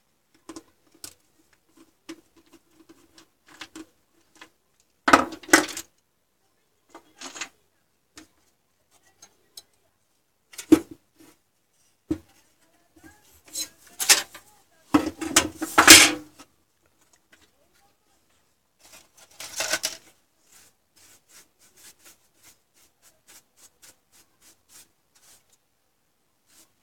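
Metal computer parts and tools handled on a wooden workbench as a motherboard's CPU heatsink is pried loose with a screwdriver and lifted off: irregular clicks and knocks, with several louder clattering bursts, the loudest a little past the middle.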